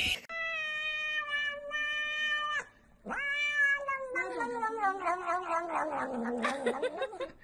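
Cat meowing in two long, drawn-out yowls: the first held at a steady pitch for about two seconds, the second, after a brief pause, longer and sliding slowly down in pitch, growing rough near the end.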